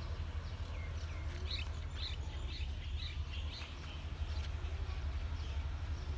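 A bird calling in a quick run of about seven short, high chirps, roughly two a second, over a steady low rumble.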